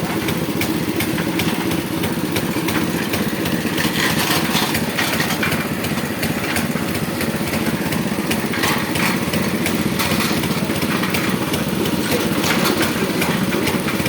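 Small engine of a bore-well drilling machine running steadily, with light regular ticking over the hum.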